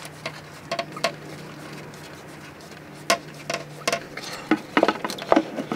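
Scattered light clicks and clinks of hands and tools working the lower radiator hose and its clamp off the radiator under a car, about a dozen short knocks spread unevenly. A faint steady hum sits underneath for the first few seconds.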